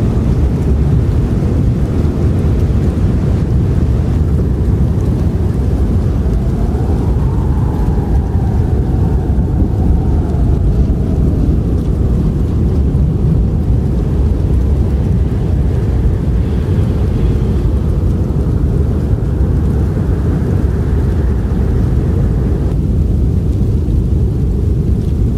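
Strong blizzard wind, a deep steady rumble with a whistling howl that rises and falls about six seconds in and fades out over several seconds.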